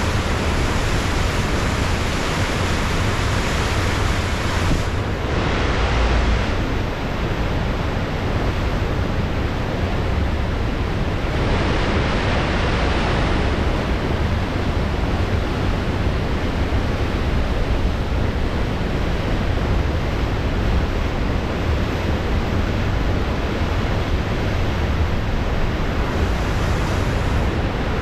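Ocean surf washing in as a steady rush, with wind rumbling on the microphone; the rush swells twice, about five and twelve seconds in.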